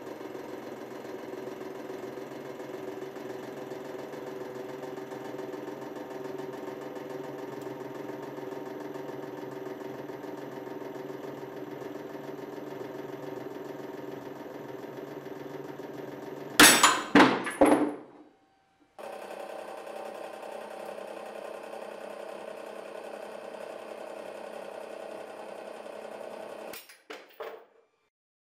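Hydraulic press running with a steady hum as its ram loads a pair of steel combination pliers. About 17 s in, the pliers give three or four sharp, loud cracks in under two seconds as the forged head breaks. After a brief gap the hum resumes, and two smaller cracks come near the end.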